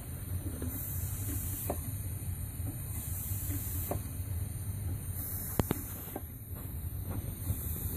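Scale-model table steam engine running slowly, its exhaust hissing in puffs every second or two over a steady low hum, with a few light ticks and one sharp click about halfway through.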